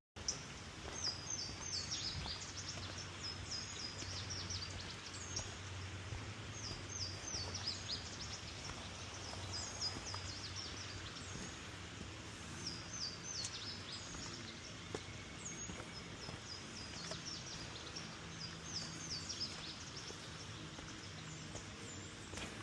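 Birds chirping in clusters of short, quickly falling calls, over a steady outdoor background with a faint low hum.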